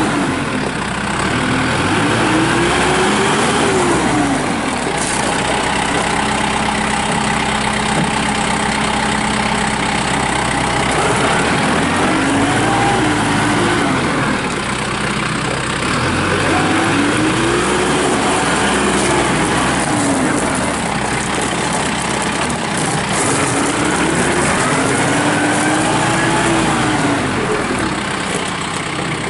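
Kubota M6060 tractor's four-cylinder diesel engine running as the tractor is driven about, its engine speed rising and falling several times.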